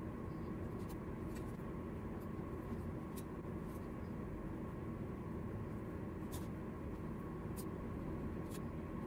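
Knit fabric being handled and pinned by hand: soft rustling with a scattering of small sharp clicks from the pins, about eight in all, over a steady low hum.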